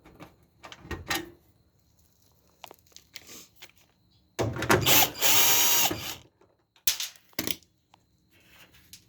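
Cordless drill-driver backing out a panel screw on a dryer: the motor runs for about a second and a half near the middle, with a few short clicks before and after.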